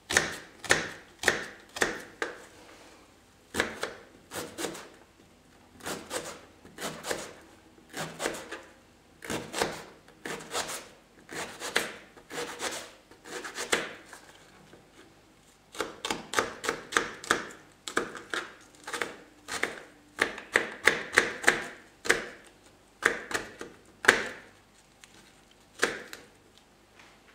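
Kitchen knife dicing an onion on a plastic cutting board: runs of quick cuts, the blade knocking on the board, with short pauses between the runs.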